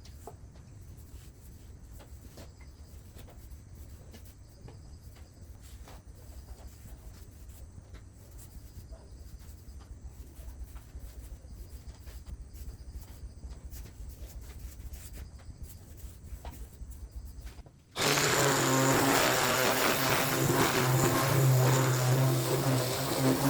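Faint scattered taps and handling sounds over a low rumble. About three-quarters of the way in, a power tool's electric motor switches on abruptly and runs loudly and steadily at one pitch.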